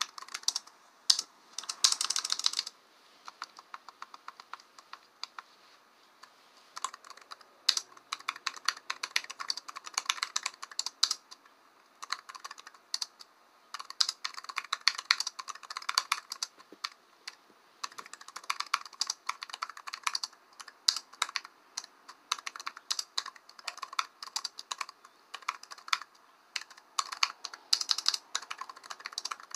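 Computer keyboard typing: bursts of rapid keystrokes with short pauses between them, the longest lull a few seconds in.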